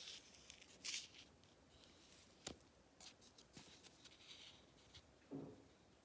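Faint handling noise of fingers turning a small dried clay cup: scratchy rustles, a sharp click about halfway through and a duller knock near the end.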